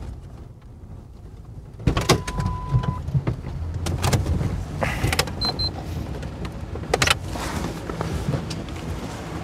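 Inside a police patrol car as it pulls up and stops: a low engine and road hum, with several sharp clicks and knocks. A steady electronic tone sounds for about a second, two seconds in, and a quick high double beep comes around five and a half seconds in.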